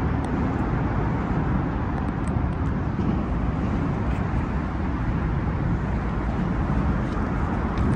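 Steady low rumble of road traffic, an even wash of noise with no distinct events.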